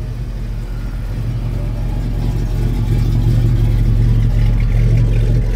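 A car engine running with a steady low hum, growing louder as the car comes closer.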